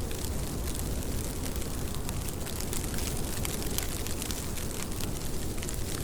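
Steady rain: an even wash of noise with a deep low rumble beneath it and many small, sharp drop ticks scattered through it.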